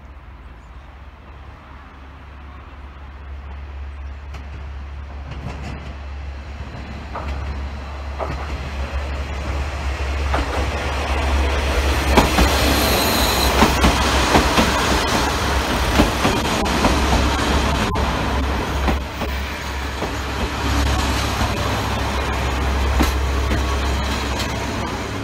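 Four-car train of KiHa 47 and KiHa 40 diesel railcars approaching and running in close by. It grows steadily louder over the first ten seconds, diesel engines humming low, wheels clicking over the rail joints, with a brief high squeal about halfway through.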